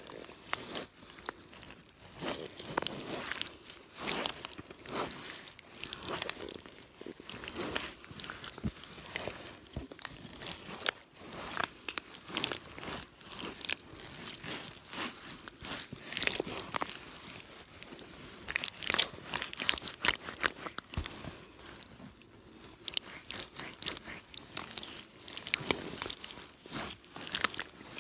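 Mitsuuma rubber boots squelching and sucking in deep, wet mud, giving an irregular run of wet squishes and crackles.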